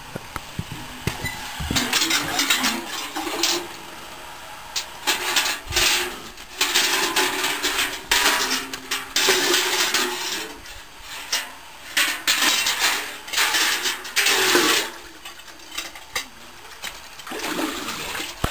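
A bucket on a wooden pole plunged and worked in the water at the bottom of a well, splashing and gurgling in irregular bursts as it fills, then quieter near the end as it begins to come up.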